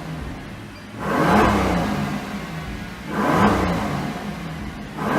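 High-performance car engine revved while stationary: quick blips of the throttle about two seconds apart, the exhaust note rising and falling with each rev, and another rev starting at the very end.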